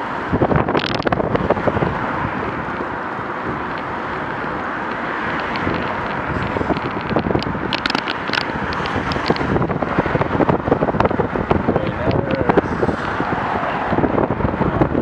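Wind buffeting the camera's microphone in irregular gusts over steady road and traffic noise, recorded while moving along a road.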